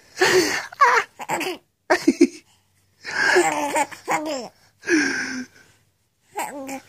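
Infant laughing in about six short, breathy bursts with brief pauses between them.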